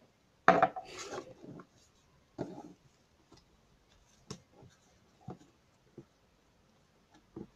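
Hands handling small objects on a hard surface: a rubbing, scraping clatter about half a second in, a shorter one near two and a half seconds, then scattered light taps and clicks.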